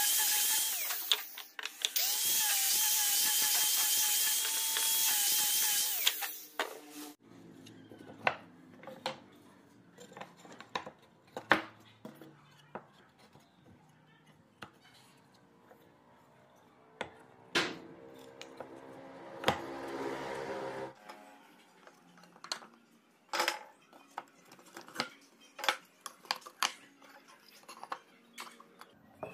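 Angle grinder with a sanding disc running at a steady whine as it sands a pine board, easing off briefly once and stopping about six seconds in. After that, scattered light wooden knocks and clacks as cut pine boards are stood up and fitted together into a box.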